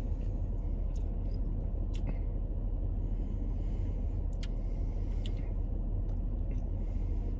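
Steady low rumble inside a car's cabin, with a few faint clicks scattered through it.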